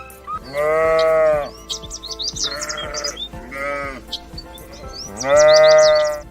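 A farm animal bleating: two long bleats of about a second each, one near the start and one near the end, with two shorter bleats between them, over background music.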